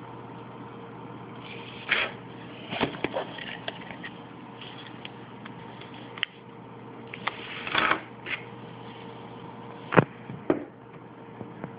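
Handling noise: scattered clicks, taps and short rustles, the loudest a sharp knock about ten seconds in, over a steady hum.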